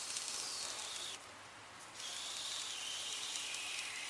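Cabin air filter's plastic frame and foam edge sliding into the HVAC housing slot, a scraping hiss in two pushes: one of about a second, then a longer one from about two seconds in.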